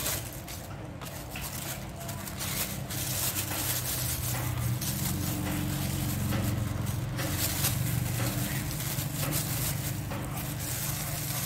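Thin disposable plastic food-prep gloves crinkling and rustling as they are pulled onto the hands, over a steady low background hum.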